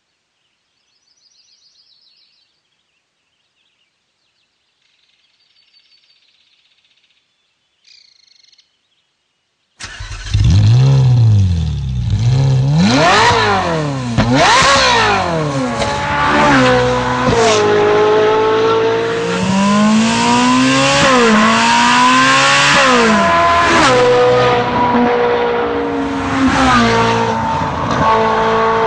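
Faint bird chirps, then about ten seconds in the Ferrari 458 Italia's V8, breathing through an Akrapovic titanium exhaust, comes in loud and abruptly. It revs sharply up and down several times, then climbs and drops in pitch repeatedly under acceleration.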